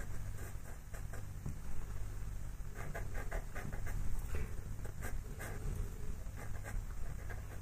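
White pastel pencil scratching on textured pastel paper in a series of short strokes, over a steady low hum.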